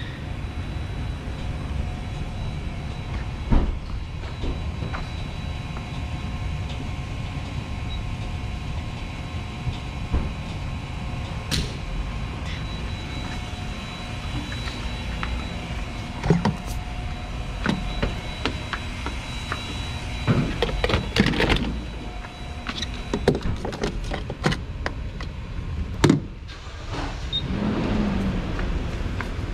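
Gas station fuel pump dispensing gasoline into a car: a steady low hum with faint steady tones, broken by scattered clicks and knocks as the pump nozzle is handled and hung back on the pump, with a cluster of clatter about twenty to twenty-two seconds in.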